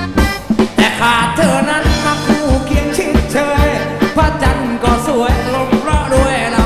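Upbeat Thai band music: a steady drum beat under a melodic lead line that bends in pitch, an instrumental break between verses.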